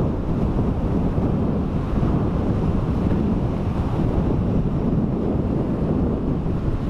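Wind buffeting the microphone in a steady low rumble, over the wash of waves on the shore.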